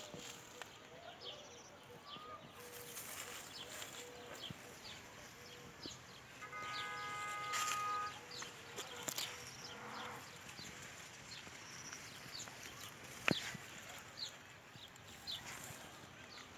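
Small birds chirping throughout, with a sheep bleating once, a held call about six and a half seconds in, and a sharp click a little after halfway.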